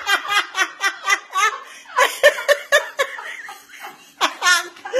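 People laughing hard in quick, repeated high-pitched bursts, easing off briefly about three seconds in before starting again.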